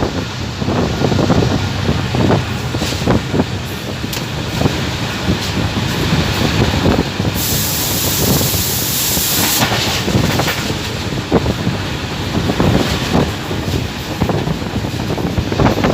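Train running at speed, its wheels clicking and clattering over the rail joints above a steady rumble. About seven seconds in, a sharp hiss rises over it for about two seconds and then stops.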